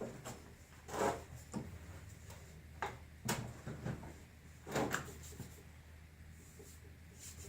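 Drill press running with a low steady hum while a hand-held abrasive scrapes against the steel part spinning in its chuck, in short rasping strokes. Three stronger strokes come about a second in, past three seconds and near five seconds. This is the part being polished on the spinning press rather than by hand.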